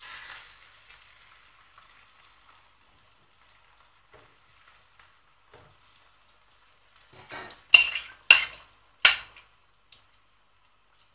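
Beaten egg poured into a hot oiled frying pan, sizzling as it hits and fading away over the next couple of seconds. Near the end a fork scrapes sharply three times.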